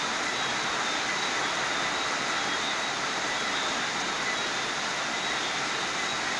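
Heavy tropical-storm rain falling steadily, an even hiss that does not let up.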